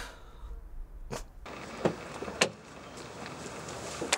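Car door clicks and knocks as a man climbs out of a car, over a steady outdoor hum. The sharpest clicks fall about two seconds in, with another near the end.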